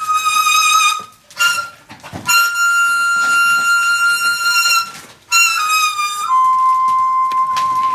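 Daegeum, the large Korean bamboo transverse flute, playing slow, long held notes separated by brief breaths, then a few quick falling notes that settle onto a lower sustained note near the end.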